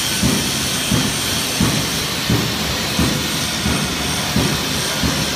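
Workshop machinery running: a steady hiss with a regular low thump about every two-thirds of a second.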